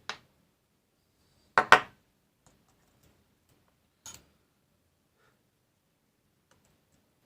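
A few sharp clicks and taps of small hard objects being handled during the laptop repair. The loudest is a quick double tap about a second and a half in, followed by a fainter click about four seconds in.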